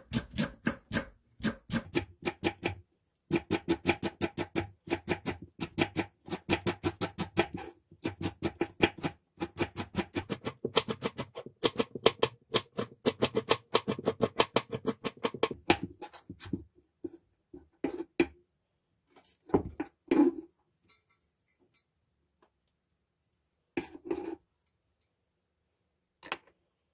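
Kitchen knife slicing green onion into thin rings on a wooden cutting board: a fast, even run of knife knocks on the board with two short breaks. The chopping stops about sixteen seconds in, leaving a few scattered knocks.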